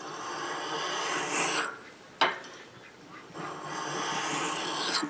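Steel ice auger blade scraped by hand across a fine sharpening stone in two long strokes, each about a second and a half, with a short tap between them. The strokes work a remaining burr off the corner of the blade's edge.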